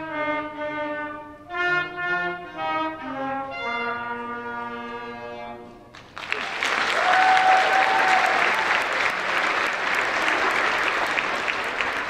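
A school wind ensemble of clarinet, flute, saxophone, trombone and sousaphone plays the closing notes of a piece, stepping down to a held low final note that dies away. About six seconds in, the audience breaks into steady applause.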